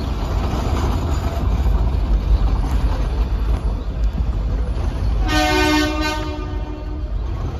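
Nilgiri Mountain Railway train running with a steady low rumble heard from on board. About five seconds in, the locomotive sounds its horn once for about a second and a half.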